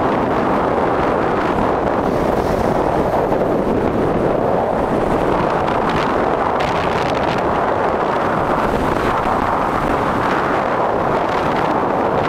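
Steady rushing noise of wind buffeting the microphone and skis sliding over packed snow during a downhill ski run, with a few faint scrapes of the ski edges.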